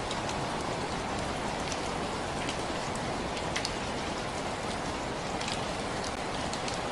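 Steady rain falling on a surface, a dense, even patter with scattered sharper drop ticks.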